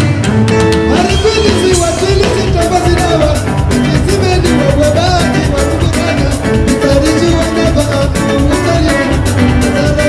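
Live band music with a steady drum beat and guitar, and a singing voice coming in after a couple of seconds.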